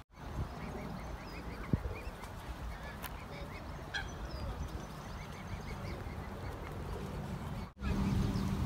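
Mute swan cygnets giving a steady string of short, high peeps.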